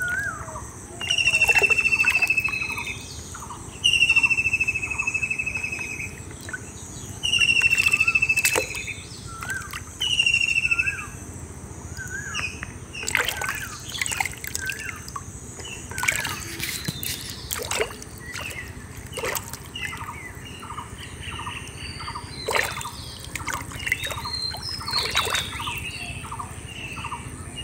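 Birds calling: one bird repeats a long, slightly falling whistled note about every three seconds for the first ten seconds or so, over many short chirps from other birds. From about halfway through, barefoot steps squelch and splash through mud and shallow water.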